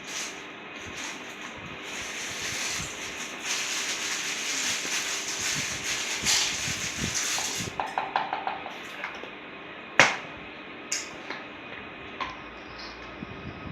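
A spoon stirring and scraping a glue and shaving-foam slime mixture in a container, followed by a few sharp clicks; the loudest click comes about ten seconds in.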